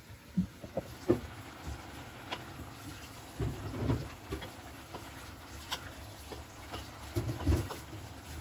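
A wooden spoon stirring boiled green lentils in a stainless steel pot, with scattered light clicks and a few dull knocks against the pot.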